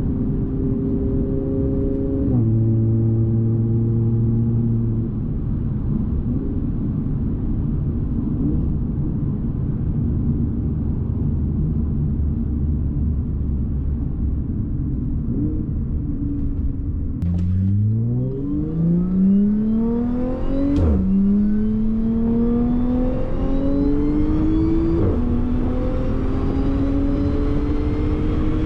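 Supercharged Audi 3.0 TFSI V6 cruising steadily, then, from about 17 seconds in, a full-throttle pull: the engine pitch climbs fast, drops sharply at an upshift, and climbs again, with a second upshift a few seconds later.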